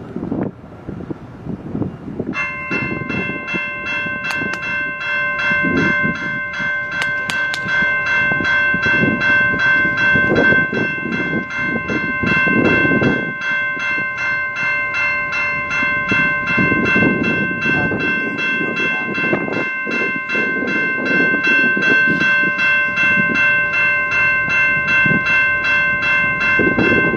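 A railroad crossing bell starts about two seconds in and keeps ringing in steady, rapid dings over the rumble of a CN mixed freight train moving on the tracks.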